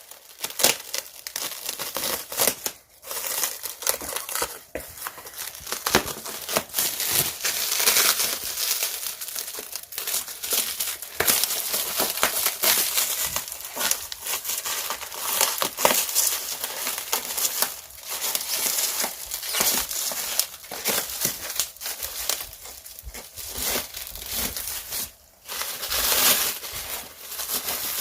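Packaging being handled and unwrapped by hand: a long run of irregular crinkling and rustling of wrapping, with many small clicks and scrapes.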